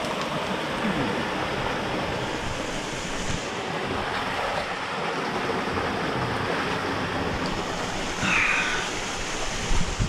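Steady rush of a small waterfall and the stream it feeds, with a couple of short knocks near the end.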